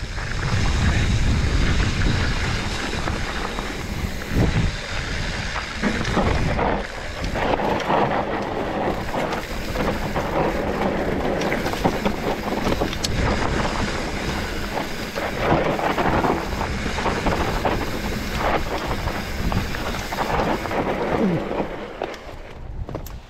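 Wind buffeting the microphone over a mountain bike's tyres rolling fast over loose dry dirt, with scattered knocks and rattles from the bike on the rough descent. The noise drops off near the end as the bike slows.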